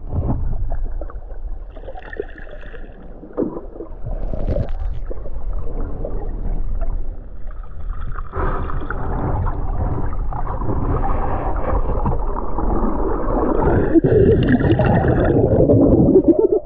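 Muffled underwater noise heard through a submerged action camera: water swishing and bubbling, growing louder and busier from about eight seconds in, with a snorkeler's exhaled bubbles close by near the end.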